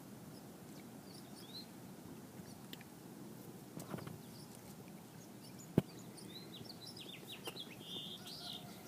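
Small birds chirping in short high calls, in a burst about a second and a half in and a quick series near the end, over steady outdoor background noise. A single sharp click about two-thirds of the way through.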